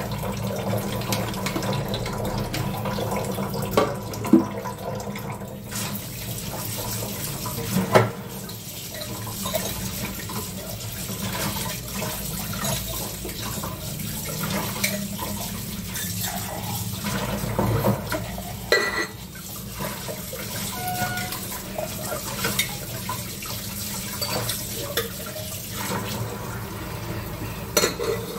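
Kitchen tap running steadily into a sink while dishes are washed by hand, with a few sharp knocks of dishes, the clearest about 4 s, 8 s and 19 s in.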